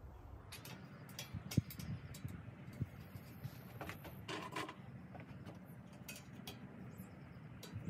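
Scattered light clicks, clinks and scrapes of hands working on a small air compressor's metal top cover and brass fittings, with one sharper click about one and a half seconds in.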